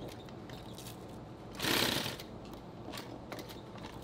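Industrial sewing machine running in a short burst of stitching about a second and a half in, followed by a few light clicks.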